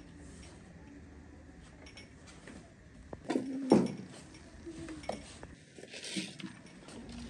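Tableware being set out and handled: bowls, plates and drinking glasses knocking and clinking against one another. There is a loud clatter about halfway through, followed by a few lighter clinks.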